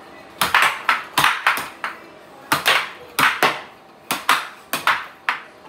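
Tabletop air hockey in play: plastic strikers smacking the plastic puck and the puck knocking around the table. About fifteen sharp clacks come in quick clusters of two or three, with short gaps between.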